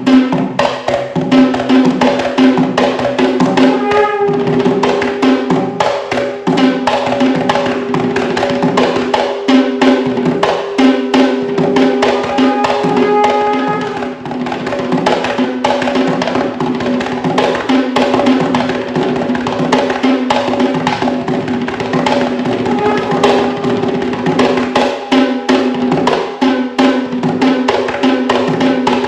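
Sri Lankan traditional hand drums, with kitul-wood shells and cowhide heads, played in a fast, dense rhythm, with a steady pitched tone sounding under the strokes.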